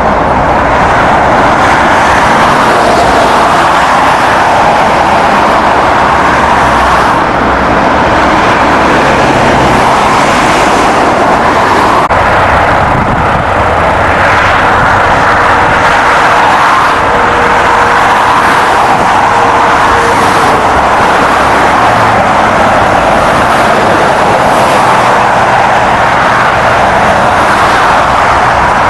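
Vehicle on the move: loud, steady road and wind noise.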